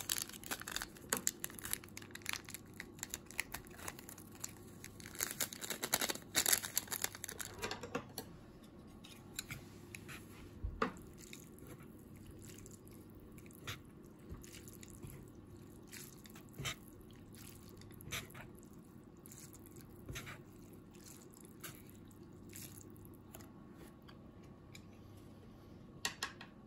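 Soup sachet crinkling and rustling as powdered soup is shaken out of it into a foam cup of instant ramen for the first several seconds, followed by chopsticks stirring the noodles with scattered light clicks and knocks against the cup, over a low steady hum.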